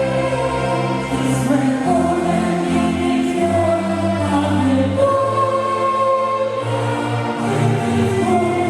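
Choral music: a choir singing long held notes, the chord shifting every second or two.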